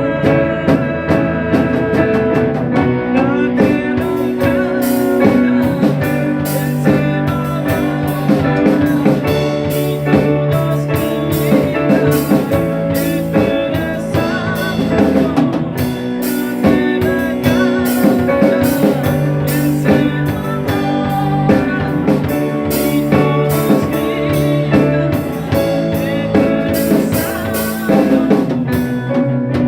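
Instrumental music: electric guitar playing a melody over a drum kit.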